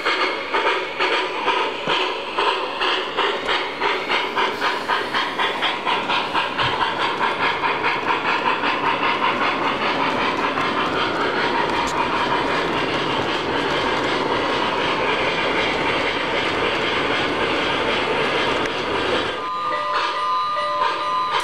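Model freight train running past, a rapid rhythmic clatter of wheels on the track that smooths into a steady rush. About two seconds before the end, the MTH Union Pacific Big Boy locomotive's sound system blows its steam whistle.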